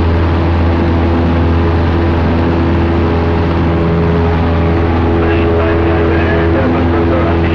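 Cessna 172's piston engine and propeller droning steadily, heard inside the cabin in flight: a loud, even hum with several held tones.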